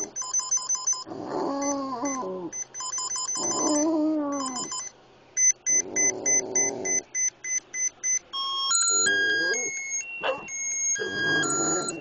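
Boston Terrier howling, about five long wavering howls, set off by an electronic device playing rapid beeps. Near the end the device plays a tune of steady stepped tones.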